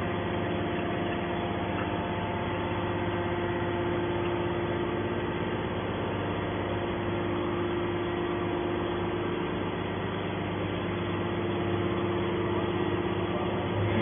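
Hydraulic scrap-metal baler's power pack running steadily, an even motor-and-pump hum with a steady tone above it, as its ejector ram pushes a compressed metal bale out of the chamber.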